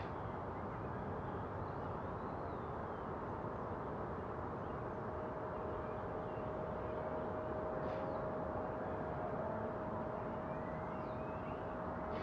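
Steady outdoor ambience: an even rushing noise, with a few faint bird chirps. A steady whining tone comes in about four seconds in and holds.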